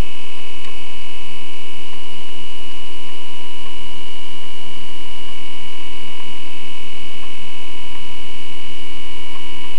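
Steady electrical hum and whine made of several fixed tones, high in pitch, unchanging throughout, picked up inside the stationary race truck's cabin.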